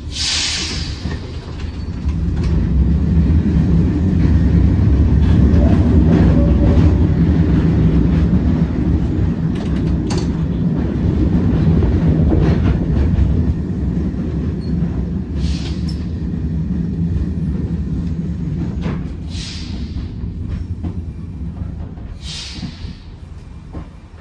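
1920s single-bogie heritage tram running on its rails, heard from inside the car: a loud low rumble that builds over the first couple of seconds and dies away toward the end as it slows into a stop. About five short, high bursts of noise break through it.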